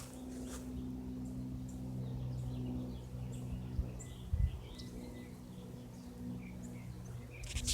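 Small birds chirping here and there over a steady low hum.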